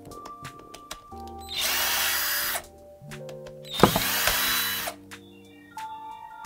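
Cordless electric screwdriver running in two bursts of about a second each, backing screws out of a massage gun's head housing, over background music.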